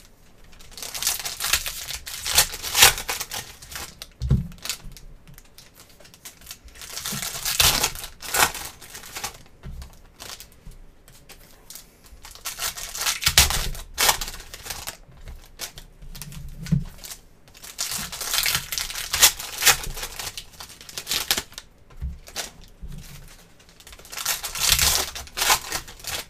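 Foil wrappers of 2023 Panini Phoenix trading-card packs being torn open and crinkled by hand, in about five crackly bursts a few seconds apart as one pack after another is ripped open.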